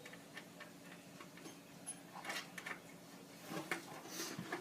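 Faint small clicks and taps of hand-held hardware: a washer and lock nut being fitted onto a screw, with a few louder knocks near the end.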